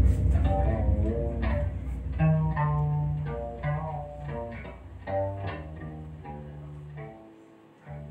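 Upright string instrument played live: a slow phrase of separate notes, some sliding in pitch, over a deep low drone that dies away over the first couple of seconds.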